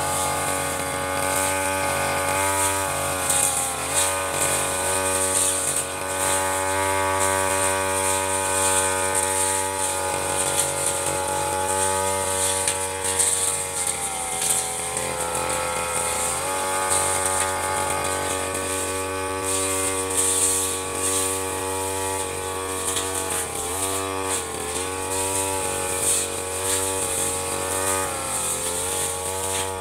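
Stihl two-stroke backpack brush cutter running at high revs while cutting tall grass with a large metal blade. Its engine pitch dips and recovers several times.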